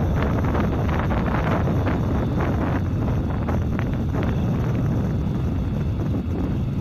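Kubota M6040SU tractor's diesel engine running steadily under load as it pulls a rotavator through wet paddy soil, with wind buffeting the microphone.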